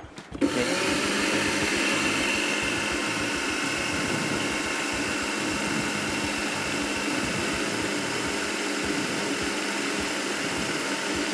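Electric food processor motor running steadily, grinding toasted sesame seeds into a paste. It starts about half a second in.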